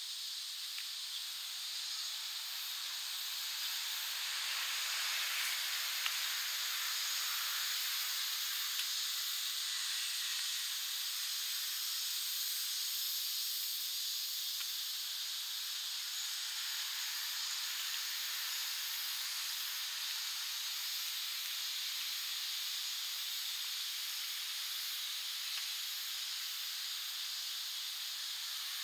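A dense, steady high-pitched hiss of a cicada chorus in summer trees, unbroken throughout.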